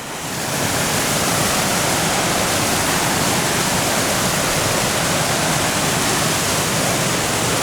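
A small waterfall on a mountain brook, water rushing steadily. It swells up in the first half second and then holds even.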